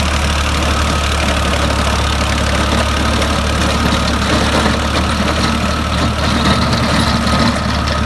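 Tractor engine running steadily, with a constant low hum.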